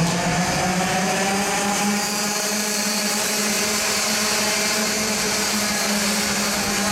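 A pack of Cadetti-class karts' small two-stroke engines buzzing together at high revs as the field passes, a steady high-pitched buzz that rises slightly in pitch at first.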